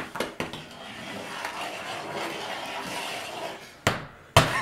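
Animal crackers struck together and broken by hand on a cardboard board: a few quick taps at the start, then a sharp crack and a heavier knock near the end as a cracker is crushed.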